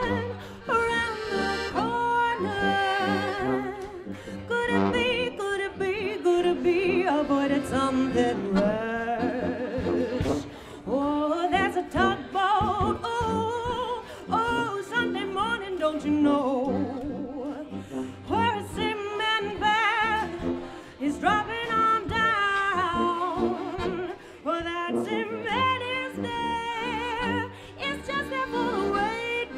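Live jazz-cabaret band: a woman singing with gliding, swooping vocal lines over piano accordion and tuba.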